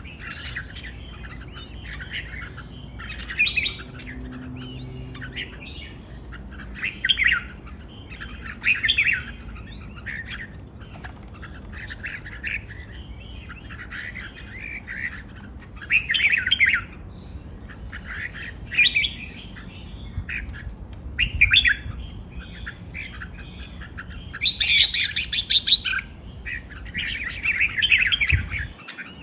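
Red-whiskered bulbuls singing short, chirpy phrases every second or two, with a louder, shriller burst near the end.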